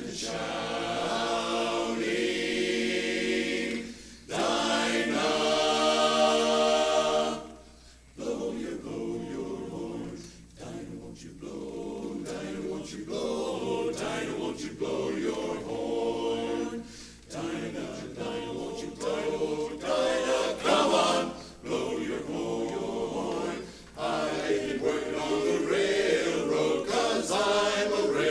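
Barbershop chorus singing a cappella in close harmony: long held chords that cut off together about seven seconds in, then shorter rhythmic phrases with brief breaks.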